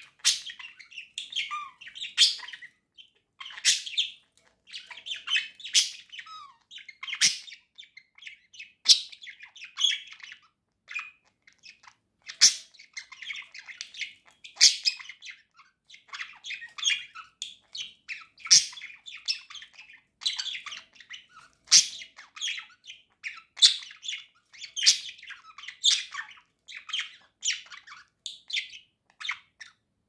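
Budgerigar warbling: an unbroken run of fast chatter and twittering, cut every second or two by a loud, sharp clicking chirp.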